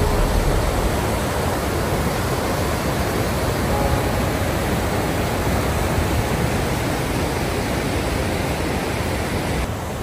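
Steady roar of a tall waterfall: water plunging and crashing, an even rushing that holds constant without breaks.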